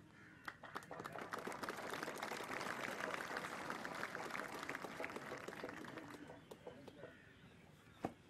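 Audience clapping, swelling within about a second, then dying away over the next five seconds into a few scattered claps.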